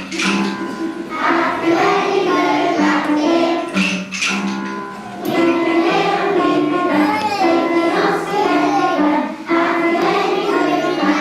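Young children singing a song together in unison with musical accompaniment, moving in held notes.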